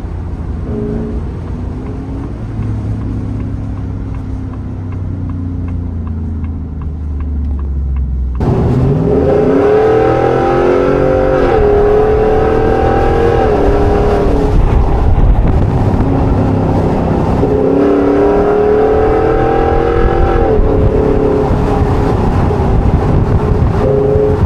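Ford F-150 Tremor's 5.0 Coyote V8 running through an open exhaust cut-out, heard from the cab: a steady cruising drone at first, then about eight seconds in it gets suddenly louder and pulls hard. Its pitch climbs and drops back several times as the transmission shifts.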